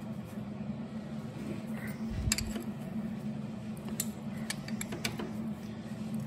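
Scattered metallic clicks and clinks of a hand wrench working a tight engine-mount bolt, trying to break it free, over a steady low hum.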